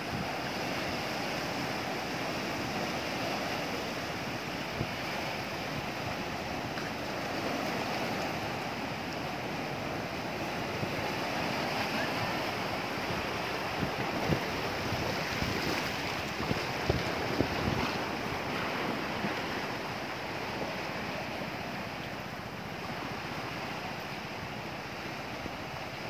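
Large ocean waves breaking and washing on the shore, a steady rumbling surf, with wind buffeting the microphone. A few sharper hits stand out a little past halfway.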